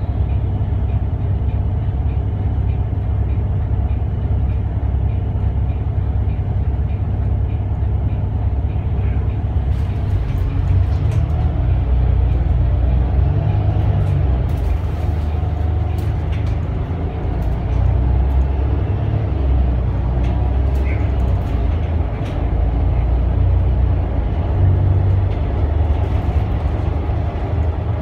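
Volvo D8K six-cylinder diesel of a Volvo B8RLE bus with a ZF EcoLife automatic gearbox, heard from inside the passenger cabin: a steady low idle at a standstill, then the bus pulls away about ten seconds in and accelerates. Cabin fittings rattle and click from then on.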